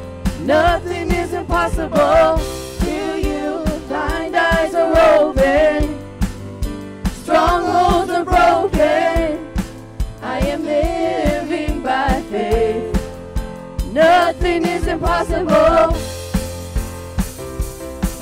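Worship song sung by a group of men's and women's voices over a band with a steady beat. The voices pause near the end while the band plays on.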